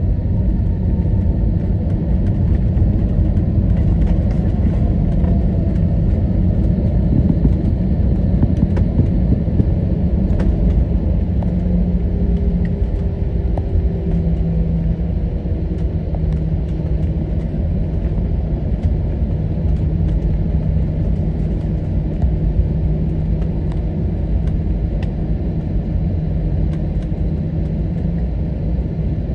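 Airbus A321neo cabin noise: a steady loud rumble of engines and airframe, with an engine tone sliding down in pitch over the first few seconds and a steadier low tone settling in about halfway through.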